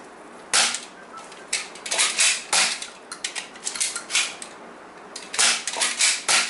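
A string of sharp plastic clicks and clacks, about a dozen spread irregularly: a BoomCo toy dart blaster being primed and fired, with Smart Stick darts striking a plastic target shield.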